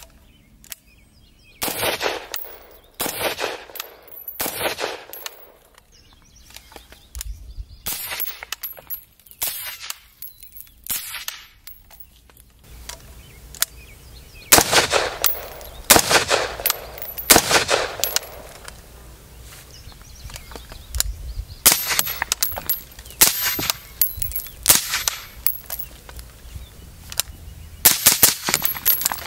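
Suppressed 5.56 AR-15 carbine, a 13.7-inch mid-length gas build with an AB Suppressors A-10 Warthog can, firing a string of single shots, mostly about a second apart, in several groups with short pauses. Light metallic clinks are heard around some shots, typical of ejected brass.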